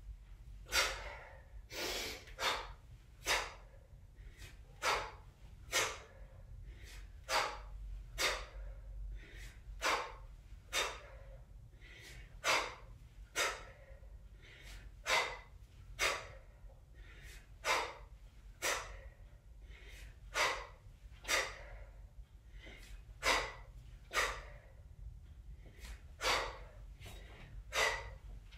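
A woman's sharp, forceful breaths during a set of one-arm kettlebell snatches, mostly two quick breaths to each rep, about every three seconds.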